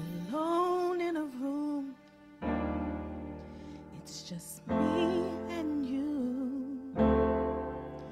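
A woman sings a slow solo into a microphone with a wide vibrato, accompanied by sustained keyboard chords. A new chord comes in roughly every two and a half seconds, and she sings two long phrases separated by a short pause.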